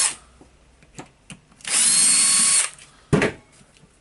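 Power drill-driver spinning for about a second, driving out a screw from the rotary hammer's clutch housing. Near the end there is one sharp knock.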